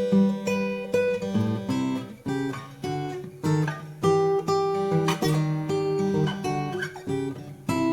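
Taylor PS14ce grand auditorium acoustic guitar played solo: a steady run of picked notes and chords, each new note or chord struck and left ringing.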